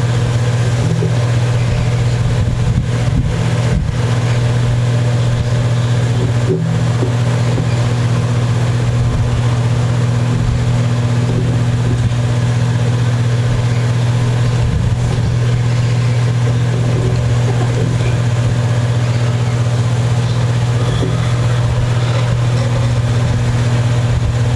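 A loud, steady low electrical hum that does not change, with a few faint knocks.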